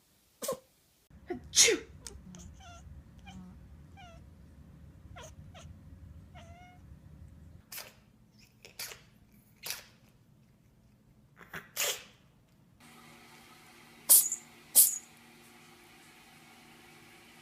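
Cats sneezing: a string of about ten short, sharp sneezes from several cats, some coming in quick pairs.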